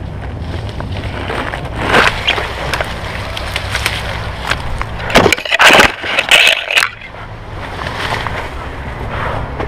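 Handling noise from a helmet-style action camera: knocks, rubbing and scraping as it is moved about among bushes, with a cluster of loud scrapes and rustles about five to seven seconds in.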